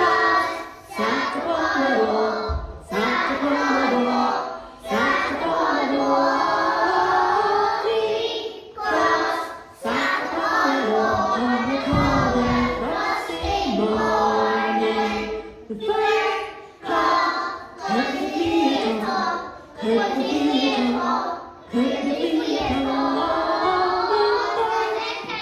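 A group of young children singing a song together in unison, in short phrases with brief breaks between them.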